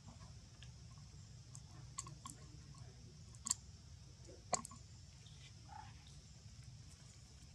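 Faint scattered clicks and ticks over a low steady hum, the two sharpest about three and a half and four and a half seconds in.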